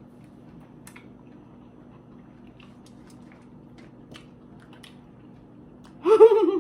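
Faint wet chewing and squishing while eating lobster tail, with scattered small clicks. Near the end a loud, high voice cries out briefly.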